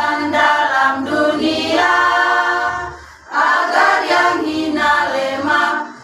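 Women's choir singing a hymn a cappella, holding long sung notes; a short breath pause about three seconds in, then the singing resumes.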